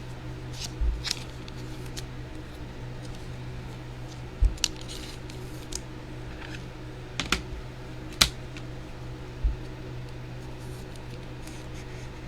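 Trading cards being slid into soft plastic penny sleeves and rigid plastic top loaders: scattered light clicks, taps and plastic rustling, with a few sharper clicks about four and eight seconds in, over a steady low hum.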